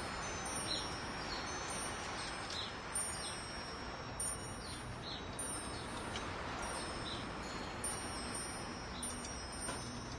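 Metal wind chimes ringing, with many high overlapping tones and light strikes every second or so, over a steady hiss.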